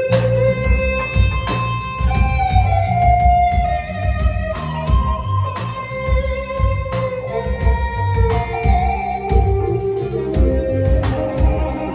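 Live band playing an instrumental passage: long held melody notes, some sliding down in pitch, over guitar, bass and a steady drum beat.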